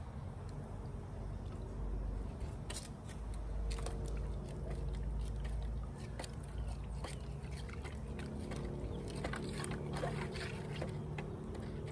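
A wooden stick stirring water in a plastic 5-gallon bucket to mix in nematode powder: irregular knocks and scrapes of the stick against the bucket, starting about three seconds in, with sloshing.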